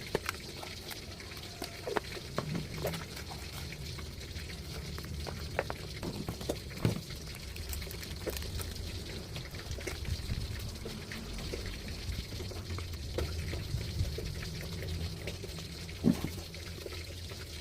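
Water running and splashing steadily, with scattered sharp knocks and clinks, the loudest about sixteen seconds in.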